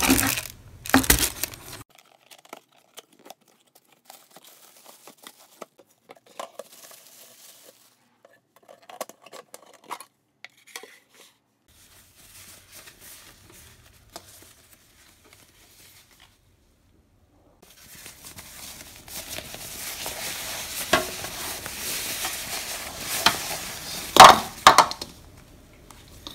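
Unpacking sounds: a plastic bag crinkling loudly for the first two seconds, then scattered small taps, and later a long stretch of paper rustling broken by several sharp knocks and clinks of a plastic cat feeder stand and clear bowls being handled and set down, the loudest near the end.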